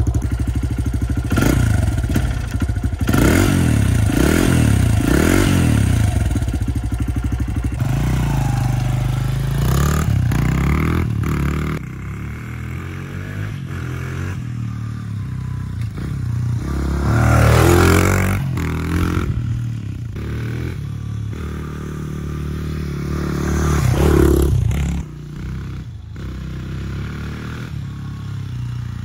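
2003 Honda XR100R's single-cylinder four-stroke engine, revved about five times in quick blips while the bike stands still, then ridden around, its pitch rising and falling with the throttle. It swells loudest twice, about 17 and 24 seconds in.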